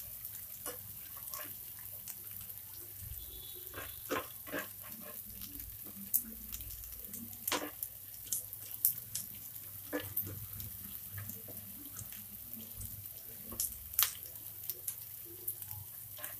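Shredded cabbage sizzling in hot cooking oil in a nonstick frying pan, a steady hiss broken by irregular taps and scrapes of a spatula stirring it against the pan.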